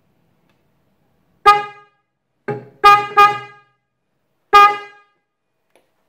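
Bosch H3F electronic car horn sounding in about five short honks as its wire is tapped onto a 12 V battery terminal, two of them in quick succession near the middle. Each honk is a brief, loud blare that cuts off as contact breaks.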